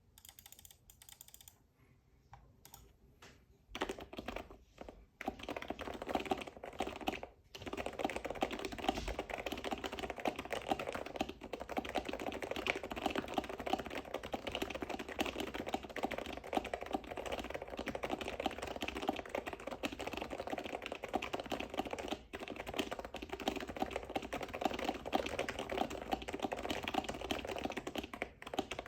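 Typing on a Topre electro-capacitive keyboard with old Pro 2 rubber domes: a few scattered keystrokes at first, then steady fast typing with brief pauses.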